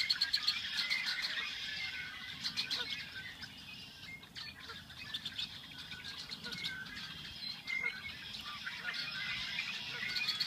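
Red-winged blackbirds calling and singing together: many short overlapping calls, with rapid buzzy trills coming and going several times.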